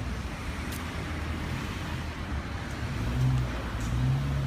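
Street traffic: a motor vehicle's low engine hum and rumble, growing louder from about three seconds in.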